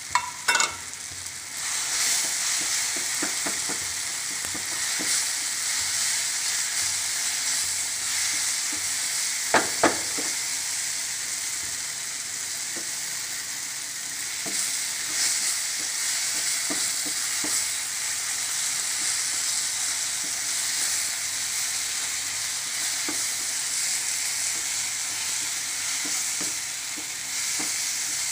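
Onion-tomato masala sizzling in a nonstick pan as a wooden spatula stirs and scrapes it, frying in freshly added chilli powder, garam masala and coriander powder. The sizzle gets louder about two seconds in, with sharp knocks near the start and a quick pair about ten seconds in.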